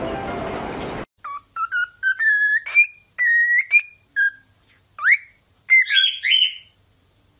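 A cockatiel whistling a string of short, clear notes, some held level and some sliding upward, ending in a warbled phrase.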